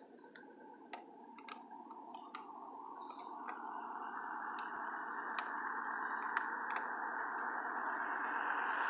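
Approaching BNSF ES44AC diesel locomotive leading an empty coal train, its engine and rail noise growing steadily louder as it nears. A few faint clicks sound here and there.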